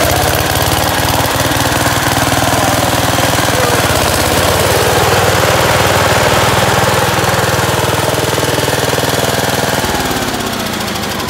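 The engine of a 1966 Montgomery Ward Garden Mark Squire 12 lawn tractor runs steadily, freshly started. Near the end it slows and dies down.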